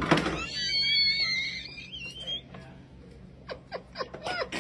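A woman shrieks in fright with a long, high-pitched, wavering scream about two seconds long, then breaks into short bursts of laughter near the end.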